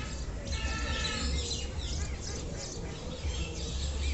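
Many birds chirping and calling over one another, a busy mix of short rising-and-falling calls, over a steady low rumble.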